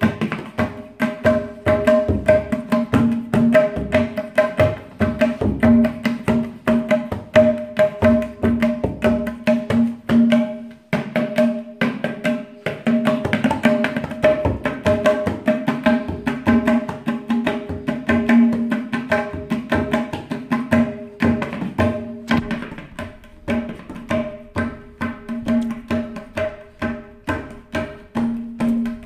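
A tabla pair played by hand in a fast, continuous rhythm: quick ringing strokes on the tuned treble drum (dayan) mixed with deeper strokes on the bass drum (bayan).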